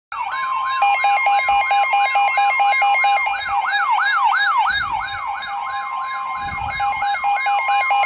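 Several weather alert radios, a Midland weather radio among them, alarming at once for a flash flood warning. A rising siren sweep repeats about three times a second, rapid beeping starts about a second in, and a higher warble runs over a steady tone near 1 kHz, the NOAA Weather Radio 1050 Hz warning alarm tone.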